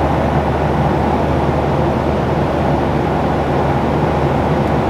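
Steady low drone of a jet airliner cabin in flight, with a constant engine hum underneath.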